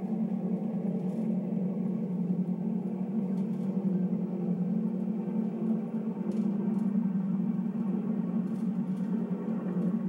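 Steady low droning hum, with fainter held tones above it.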